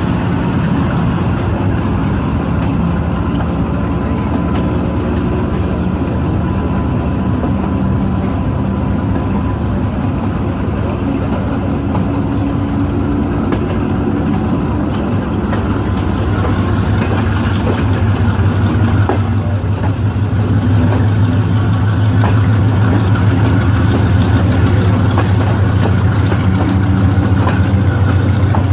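Diesel locomotive engine idling with a steady low hum, growing louder about two-thirds of the way through.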